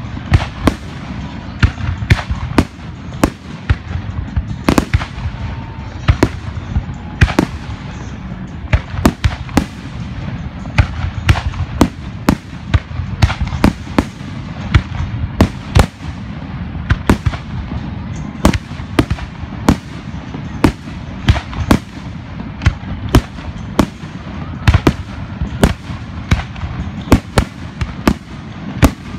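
Fireworks going off in a continuous barrage of irregular sharp bangs and cracks, a few a second, over a constant low rumble.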